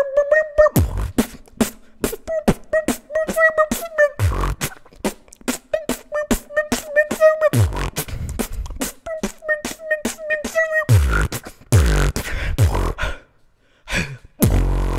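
Mouth beatboxing freestyle: quick sharp clicks and snares over deep bass drops that fall in pitch, with a held sung note running over the beat in stretches. The beat breaks off briefly near the end, then comes back with another bass drop.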